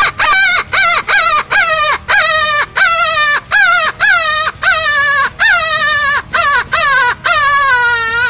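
Duel open-reed coyote howler predator call blown as a rabbit in distress: a loud, quick string of wailing squeals, about two a second, each falling in pitch. The cries are chopped apart by fluttering the little finger over the bell while growling into the reed, and the last few are drawn out longer.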